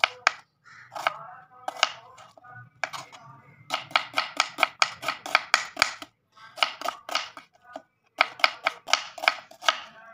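Kitchen knife slicing an onion on a wooden chopping board: quick runs of sharp cuts, about four or five a second, with short pauses between the runs.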